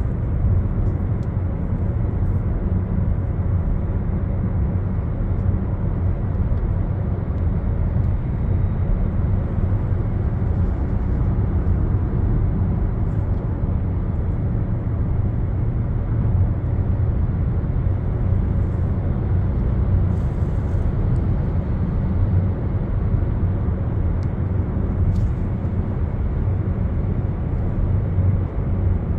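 Steady low rumble of a moving road vehicle, its engine and tyre noise holding even throughout.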